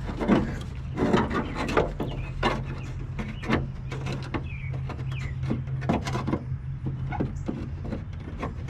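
Irregular clicks and knocks of a car horn and its metal mounting being handled and fitted into place, over a steady low hum.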